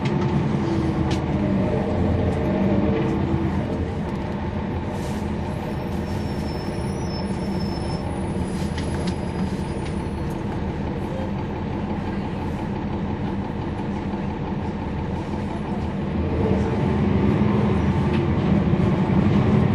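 Cabin sound of a NABI transit bus's Cummins ISL9 straight-six diesel engine running. The engine is louder at the start, settles lower through the middle, and rises again about three-quarters of the way in as the bus accelerates. A few faint high-pitched squeals come around the middle.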